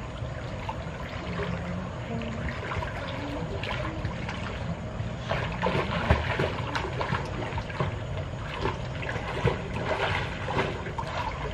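Water splashing and sloshing in a swimming pool as two swimmers kick and paddle, the splashes getting busier about halfway through.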